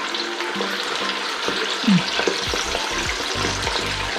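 Quail pieces deep-frying in hot oil in a pan, a steady sizzle. A short falling squeak comes about two seconds in.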